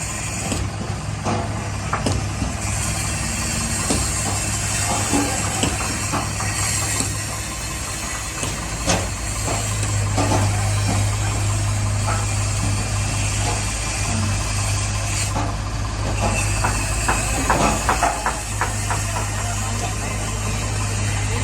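A heavy machine's engine running steadily at idle, with scattered knocks and clatter that come thickest about three-quarters of the way through.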